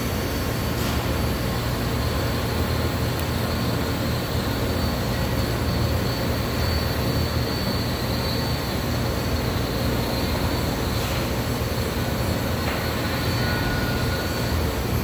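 Pulsed MIG welding arc buzzing steadily and without a break inside a 24-inch steel vessel, with a low hum under it.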